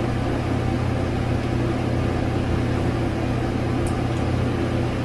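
Steady low machine hum, even and unchanging.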